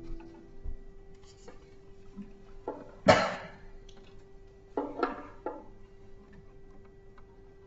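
The last note of an acoustic guitar dies away, then a lull between passages with a faint steady hum and a few short, sharp noises, the loudest about three seconds in and a quick cluster of them around five seconds.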